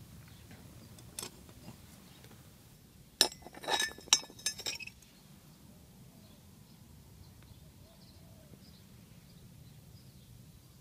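Steel crucible, made from a length of rectangular hollow section with welded-on feet, clinking several times in quick succession against brick paving as it is handled and stood upright, with a short metallic ring after each knock.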